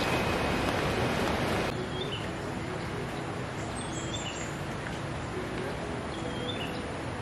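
Steady rushing of river rapids for about the first second and a half, then cutting abruptly to quieter outdoor ambience. In the ambience a bird gives short, high chirps, several times in pairs.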